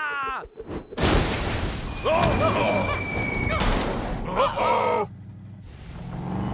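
Cartoon sound effects for a monster-truck crash: a sudden loud boom about a second in, then a few seconds of noisy rumbling with short voices crying out, dying down near the end.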